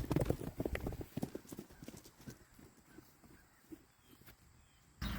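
Horses' hooves clip-clopping in quick, irregular hoofbeats that thin out and fade away about halfway through.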